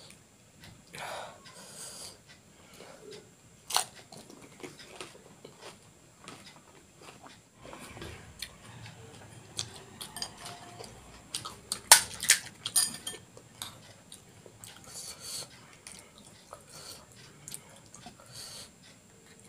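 Crisp, hollow panipuri puris being cracked open and crunched while chewing, in irregular crackles, with light clinks of a spoon against glass bowls. The crunching is loudest a little past the middle.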